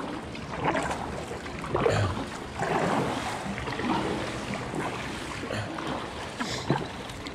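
Kayak paddle strokes, the blades dipping and splashing into the river in a rhythm of roughly one stroke a second, over a steady wash of moving water.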